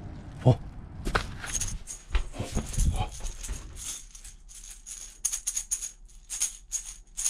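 A single thump about half a second in. Then a painted wooden maraca is shaken by hand in short, irregular shakes, its filling rattling.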